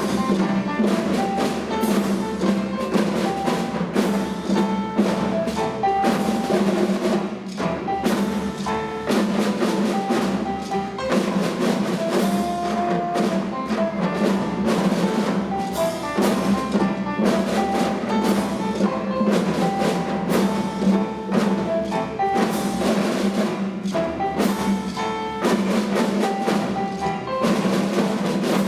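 Music with a steady beat: mallet percussion such as xylophone or glockenspiel over drum and wood-block strikes.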